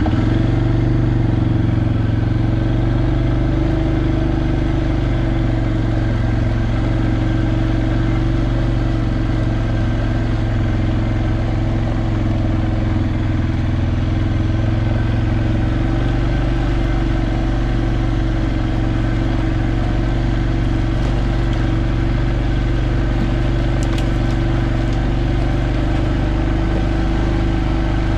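ATV engine running at a steady speed while riding along a trail, a constant drone with no change in pitch.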